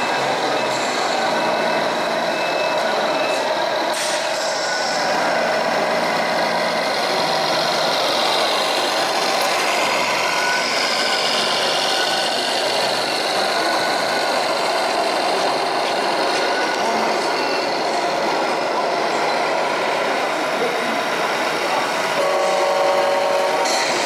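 Electronic truck sounds from a 1/14-scale RC Scania's onboard sound module: simulated diesel engine running with beeping, over a steady background din. A short pitched tone sounds near the end.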